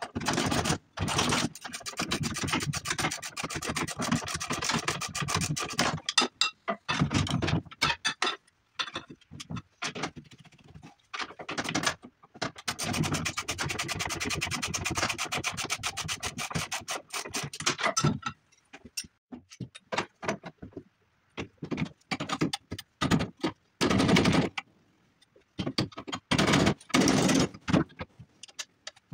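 Sped-up workshop sounds of hand tools working on a snowmobile chassis: rapid clicking and scraping in choppy bursts that cut off abruptly, with silent gaps between them.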